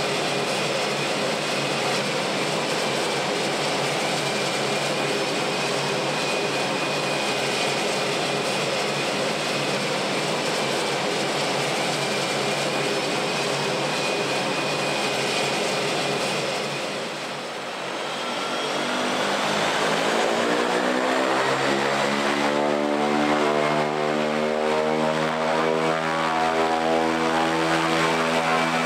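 Air Tractor AT-402 turboprop crop-spraying plane running on the ground: steady engine and propeller noise with a thin high turbine whine, then a brief dip about two-thirds through, after which the engine note rises as power comes up and settles into a strong steady propeller hum.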